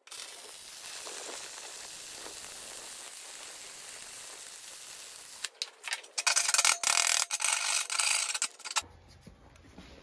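MIG welding arc from a Miller Multimatic 255 hissing and crackling steadily as a bead is laid, with the footage sped up. After about five and a half seconds comes a louder, rougher rasping noise full of sharp clicks that lasts about three seconds.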